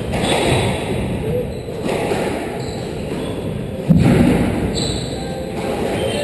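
Squash rally in a hall: the ball cracking off rackets and walls and players' footsteps on the wooden court floor, with a sudden heavy thump about four seconds in.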